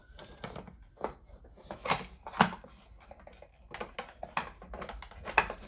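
A series of sharp clicks and knocks as a part of an opened LCD TV is handled and its clips are lined up with their holes; the loudest two knocks come about two seconds in.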